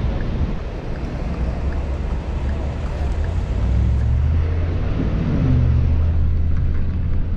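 Car driving through city streets, heard from inside: a steady low rumble of road noise with wind buffeting the microphone. Around four to five seconds in, a low engine note rises briefly.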